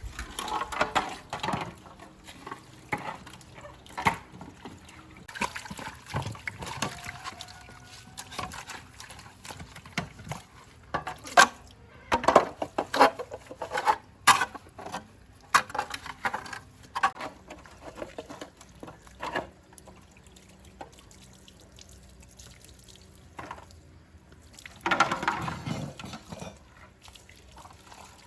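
Liquid splashing and trickling, broken by many irregular sharp clacks and brief bursts of handling noise, heaviest in the middle and again near the end.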